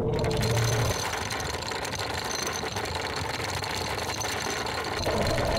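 Vetus electric anchor windlass running as it pays out the anchor chain, a steady mechanical whir with the chain rattling over the gypsy.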